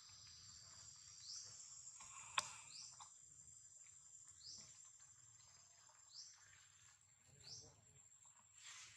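Faint outdoor ambience: a steady high-pitched insect drone, with a bird giving a short rising chirp about every second and a half. A single sharp click comes a little over two seconds in.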